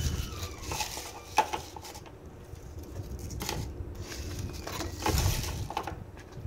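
Kitchen items being handled on a countertop: scattered light knocks and clicks, one sharp click about a second and a half in, and a louder spell of rustling and handling about five seconds in.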